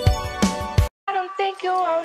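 Pop song with a steady beat and a sung line that cuts off just under a second in. A brief gap follows, then a different, high-pitched sung voice whose pitch slides up and down.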